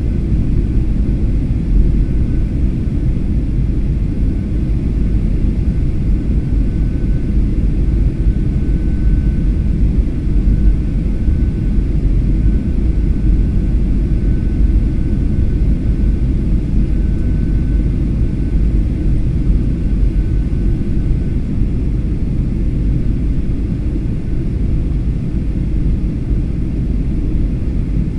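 Steady low rumble of engine and airflow noise inside the cabin of a Skymark Boeing 737-800, heard from a window seat over the wing during the approach descent. A faint, thin high tone comes and goes through the middle.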